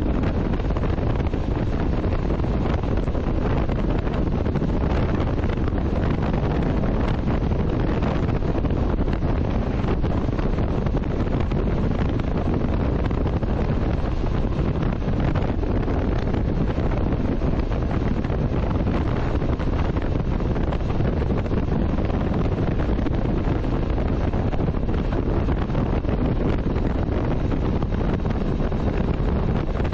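Steady wind rushing over the microphone on a moving motorcycle at road speed, a dense even noise heaviest in the low end, with no distinct engine note or separate events standing out.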